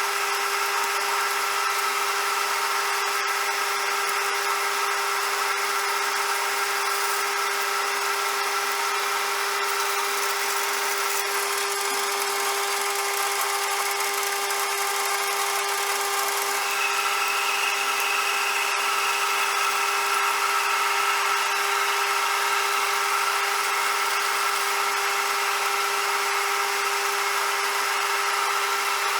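CJM360 metal lathe running steadily, its motor and drive giving a constant whine over a hiss. A higher whine comes in briefly a little past the middle.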